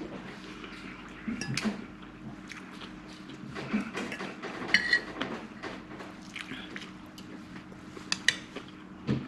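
Fork and spoon clinking and scraping on a dinner plate during eating, with a ringing clink about five seconds in and a few sharp clinks near the end. A faint steady hum runs underneath.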